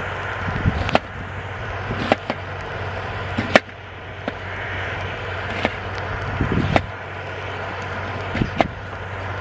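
Kitchen knife slicing an onion on a wooden cutting board: sharp, irregular knocks of the blade meeting the board, about eight in all.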